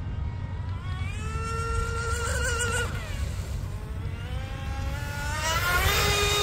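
Small RC speed boat's brushless motor and three-blade prop whining at full throttle on a speed run, the pitch rising sharply as it accelerates about a second in, then climbing again to its loudest near the end as the boat comes past close. A steady low rumble sits underneath.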